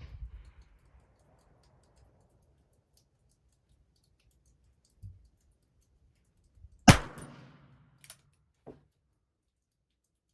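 A single shot from a Ruger Super Wrangler single-action revolver firing .22 Long Rifle, a sharp crack about seven seconds in with a short echoing tail. Faint clicks come a couple of seconds before and just after it, the hammer being cocked.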